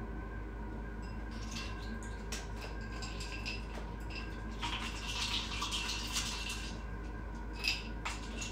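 Ice clinking in a glass as water is sipped from it, with light scattered clicks and a denser rattling, slurping stretch of about two seconds in the middle, then a couple of sharper clinks near the end.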